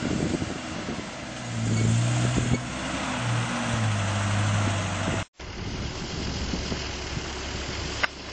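Toyota Hilux double cab's engine working at low speed as it crawls up a grassy slope close by, its steady note strengthening after about a second and a half. After an abrupt cut, a lower, steadier off-road vehicle engine rumble follows, with a short click near the end.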